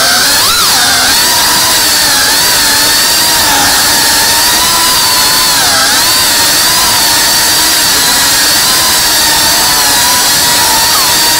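Cinewhoop FPV quadcopter's brushless motors and ducted propellers whining steadily in flight, heard through the onboard camera's microphone. The pitch wavers up and down as the throttle changes, with a brief dip about six seconds in.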